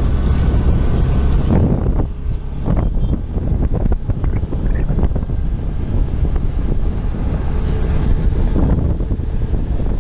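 Wind buffeting the microphone of a rider on a moving motorbike, with a steady low rumble of the ride beneath it.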